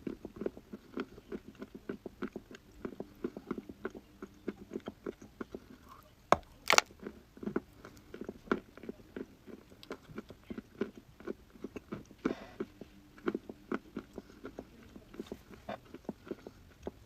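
Dry chalk and clay being bitten and chewed: a steady run of small crunches, several a second, with two louder snaps about six and a half seconds in.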